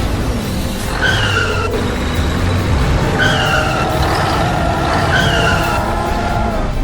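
Vehicle engines running, with three short falling squeals about two seconds apart.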